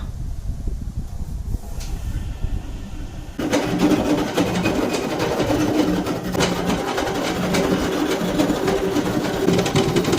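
A low rumble with a few clicks, then, about three and a half seconds in, a motor-driven machine starts up suddenly and runs steadily with a dense mechanical rattle and a few held tones.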